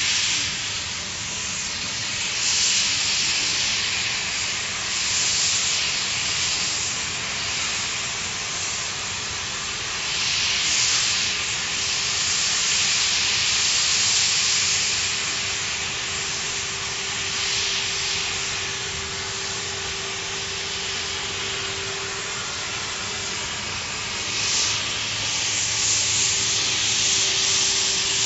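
CNC gantry profile-cutting torch cutting through steel plate: a steady hiss of gas jet and molten spray. A faint steady hum joins about halfway through.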